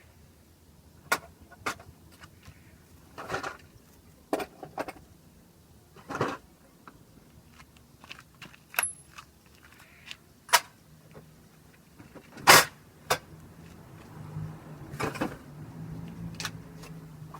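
Tools and metal parts clinking and knocking as they are handled, a dozen separate strikes with the loudest about twelve seconds in. A low steady hum joins about eleven seconds in.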